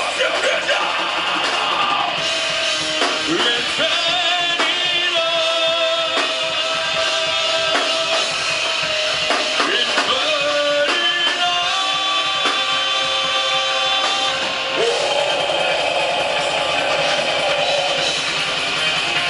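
Rock band playing live, with a drum kit and guitars.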